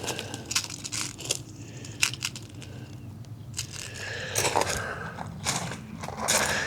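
Handling noise from the SMK Snowpeak PP750L air pistol as its adjustable buttstock is removed: scattered clicks and knocks, then a stretch of scraping and rattling from about four seconds in.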